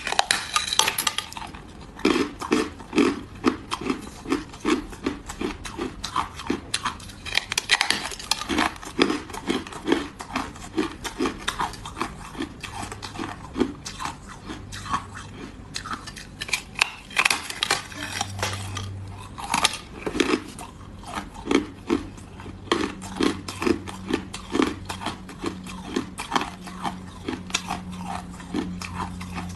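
A person biting and crunching hard frozen-Coke ice close to the microphone: a steady run of sharp cracks and crunches, about two a second.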